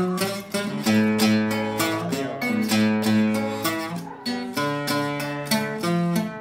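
Acoustic guitar played solo, plucking a melody of single notes over low bass notes.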